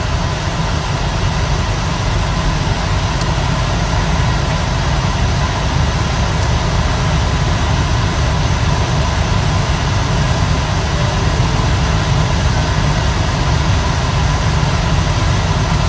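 Steady engine noise with a heavy low rumble and a faint steady whine, running unchanged throughout.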